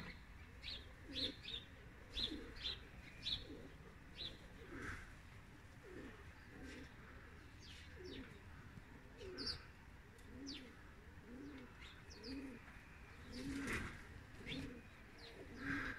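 Domestic pigeons cooing faintly, a run of low repeated coos through the middle stretch, with small birds giving short high chirps now and then.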